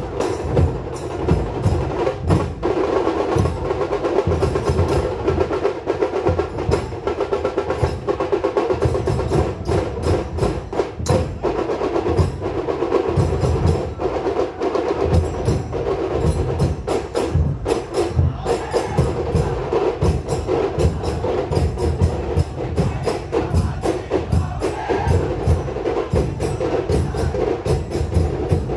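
Loud, fast traditional percussion of a Goan Shigmo troupe: drums beaten with sticks in a dense, continuous stream of sharp strikes over repeated deep drum beats.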